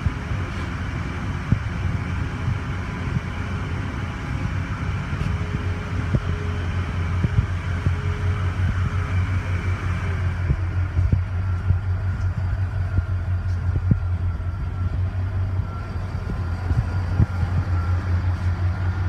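Pickup truck engine idling: a steady low hum, with scattered light knocks.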